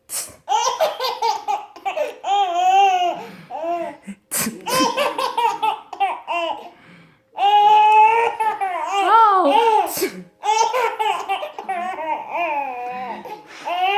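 Baby laughing hard in long runs of high-pitched laughs. Three short, noisy bursts cut in, at the start, about four seconds in and about ten seconds in: a woman sneezing, which sets the baby off laughing again.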